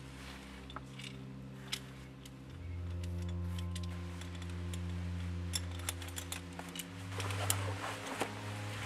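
Metal clinks and rattles of caving hardware, a rappel rack's bars and carabiners, handled while a rope is rigged, coming thicker in the last couple of seconds. Beneath them runs a low steady drone that shifts pitch twice.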